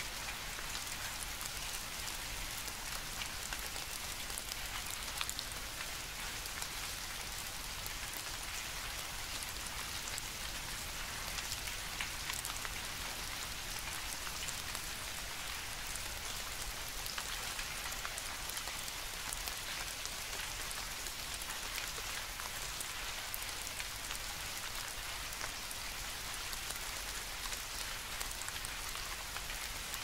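Steady rain: an even hiss with a fine patter of drops that does not change.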